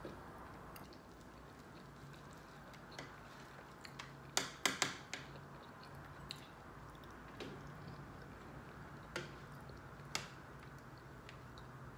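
Eating sounds: quiet chewing and a fork tapping and scraping on a serving platter while food is cut, with a quick cluster of clicks about halfway through and single clicks near the end, over a faint steady low hum.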